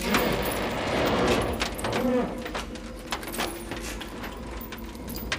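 Irregular clatter of sharp knocks and rattles over a steady low background noise.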